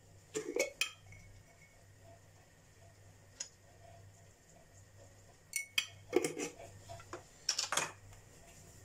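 A metal spoon clinking and tapping against a stainless steel mixing bowl as pepper is shaken in: a few clinks about half a second in, a single one near the middle, then a busier run of taps in the last three seconds. One clink leaves the bowl ringing briefly.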